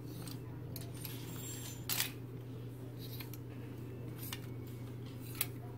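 Clear plastic clothes hangers clicking and scraping on a metal clothes rail as shirts are pushed aside one by one: a few separate sharp clicks, the loudest about two seconds in.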